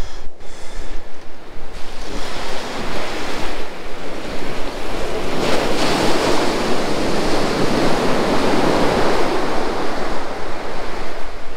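Sea surf breaking on the beach, with wind buffeting the microphone. The wash swells up a couple of seconds in, is loudest about halfway through and eases off near the end.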